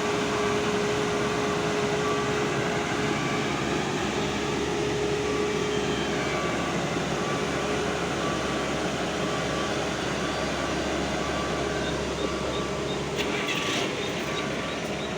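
Diesel engine of heavy construction machinery running steadily, with a faint beep repeating at an even pace.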